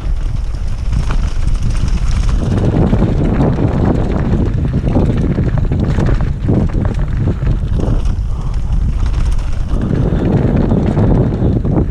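Wind buffeting the microphone over the rattle and jolts of a mountain bike riding fast downhill over rough, rocky ground.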